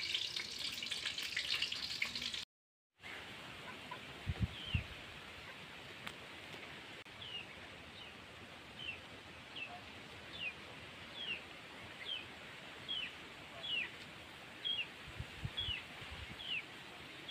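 Hot oil sizzling as fritters fry in a wok for the first couple of seconds. After a brief cut, a bird repeats a short falling chirp about once a second through the rest.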